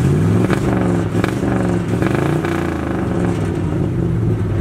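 1972 Dodge D100's 318 V8 exhaust through glasspack mufflers, revved a few times while the truck stands still, the pitch rising and falling with each blip, then settling to a steady run near the end.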